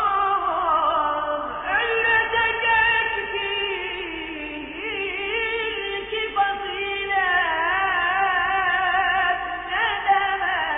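A male voice singing a Turkish na't, a devotional hymn in praise of the Prophet, in long wavering melismatic phrases, fading away near the end.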